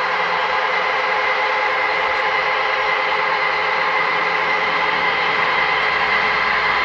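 Long model freight train running steadily along its track: an even, continuous noise of the cars' wheels rolling on the rails.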